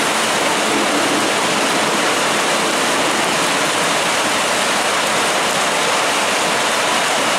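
Heavy rain falling in a downpour: a steady, even rush of water noise with no letup.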